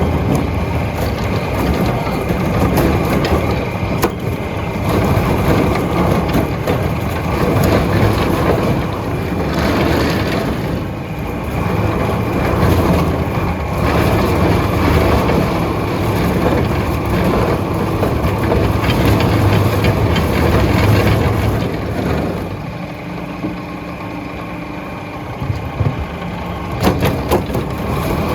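Log peeling machine running, shaving wood from a log with a continuous rumbling, grinding noise. It eases for a few seconds near the end, then a few sharp knocks are heard.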